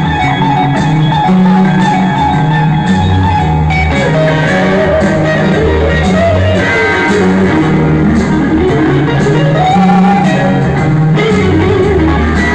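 Live blues-rock band playing: electric guitar lead with bending notes over bass guitar and a drum kit.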